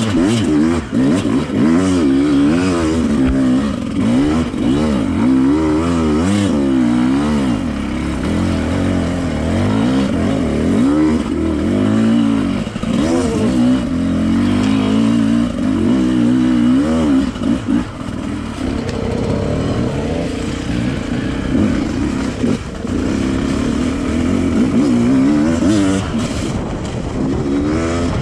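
Enduro motorcycle engine being ridden hard off-road, its pitch rising and falling again and again with the throttle and gear changes.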